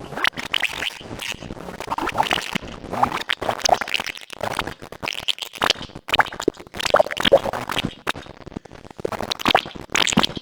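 Synthesizer patch played through iZotope RX with only the extracted clicks output: a dense, irregular crackling and glitchy clicking texture in clusters, with brief gaps.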